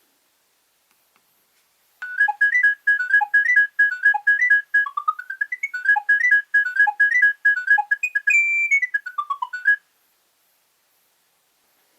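Nokia 3200 mobile phone playing a ringtone: a quick, bright melody of short notes, with a rising run of notes midway, one held high note near the end, then a falling run before it stops.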